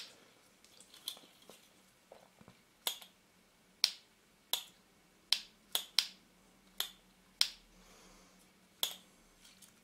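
Mirror mechanism of a partly disassembled Canon EOS 450D DSLR clicking as it is worked by hand: about a dozen short, sharp clicks at uneven intervals.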